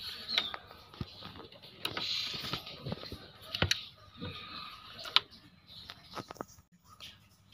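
Handling noise around a wooden-barred bird cage: rustling with scattered sharp clicks and knocks, the loudest knock about five seconds in.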